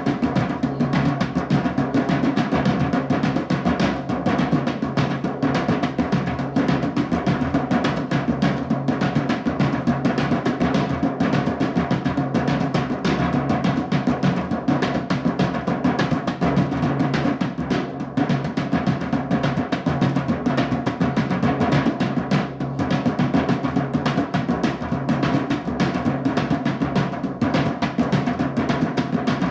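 Drumming music: rapid, continuous drum strokes with no pause.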